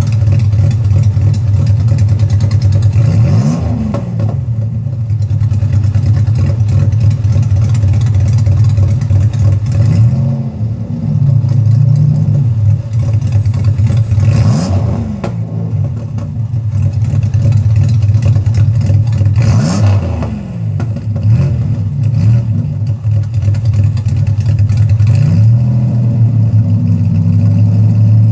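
1989 Chevrolet Cavalier Z24's 2.8-litre V6 idling through an exhaust straight-piped to the middle of the car, with the rear section of the resonator removed. It is revved several times, the pitch rising and falling with each blip: three sharp revs and a few lighter ones.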